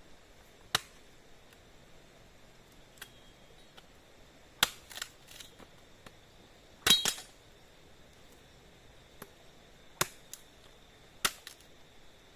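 Wood cooking fire crackling: irregular sharp pops and cracks, about a dozen, the loudest a double crack about seven seconds in, over a quiet background.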